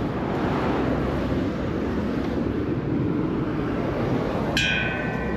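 Steady vehicle rumble with road or wind noise. About four and a half seconds in, a high-pitched squeal of several tones cuts in suddenly.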